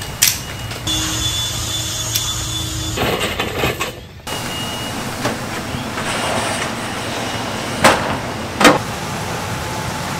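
Steady outdoor background noise with a few sharp knocks and rattles of aluminium-framed glass sliding windows being handled; the two loudest knocks come close together near the end.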